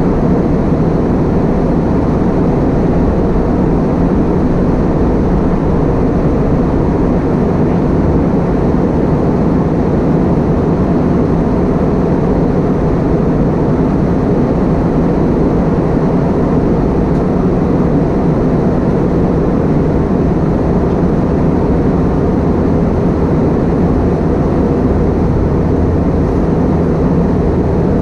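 Steady, loud cabin noise of an Airbus A320-232 heard from a window seat: its IAE V2500 turbofans and the airflow over the fuselage, a deep even rush with no changes.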